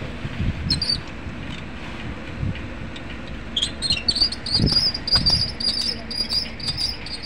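A small bird chirping rapidly, about three to four short high chirps a second, starting about three and a half seconds in. Under it runs a steady low rumble with a few dull thumps.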